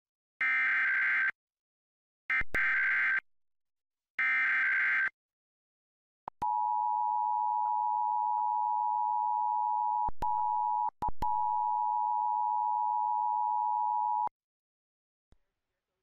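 Emergency Alert System broadcast signal: three roughly one-second bursts of SAME digital header data, then the EAS two-tone attention signal (853 and 960 Hz) held steady for about eight seconds, dropping out briefly a few times near the middle, opening a Required Monthly Test.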